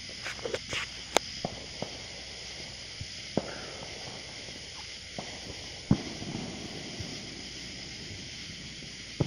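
Firecrackers popping at irregular intervals, a dozen or so sharp cracks. The loudest comes about six seconds in and is followed by a short rumbling echo, all over a steady high hiss.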